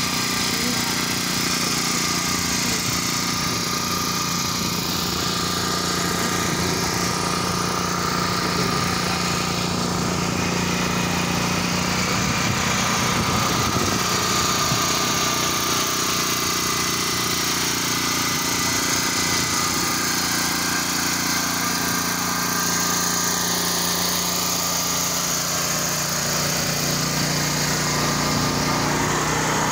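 Small engine running steadily at a constant speed, typical of a portable generator powering a food trailer; its hum drops slightly in pitch near the end.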